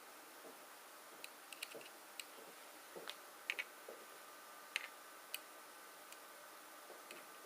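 Light, irregular clicks and taps of laptop parts being handled during disassembly, about a dozen in all, the loudest a quick pair about three and a half seconds in and a single sharp click near five seconds.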